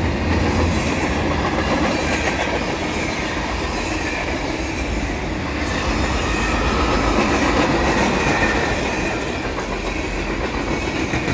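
Canadian Pacific freight cars (container well cars, a covered hopper and a tank car) rolling past, their steel wheels running steadily on the rails. The sound swells slightly about halfway through.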